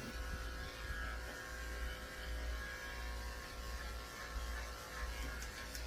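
Electric dog grooming clippers with a number 7 blade running with a faint, steady buzzing hum as they shave the short coat under a dog's tail.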